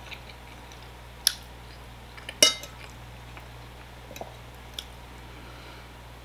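A metal fork clinking and scraping against a dinner plate a few times, the loudest clink about two and a half seconds in with a brief ring, over a steady low hum.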